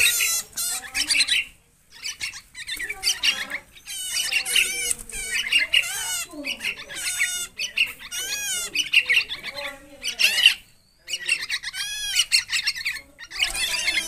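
Several caged songbirds chirping and calling in rapid, warbling notes that overlap one another, with a brief break about two seconds in and another near eleven seconds.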